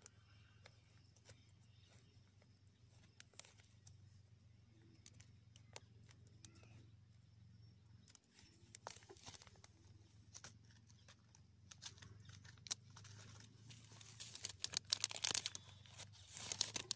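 Crinkling and tearing of a paper seed packet being handled and opened. It starts as scattered faint crackles and grows denser and louder in the second half, over a faint steady low hum.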